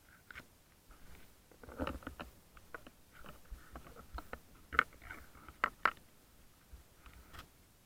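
Irregular clicks and knocks of spearfishing and diving gear, heard through an action camera's underwater housing. There is a duller thump about two seconds in and a few sharp clicks past the middle.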